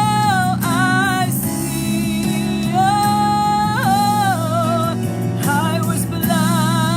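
Slow gospel worship music: a solo voice holding long notes with vibrato over sustained keyboard chords.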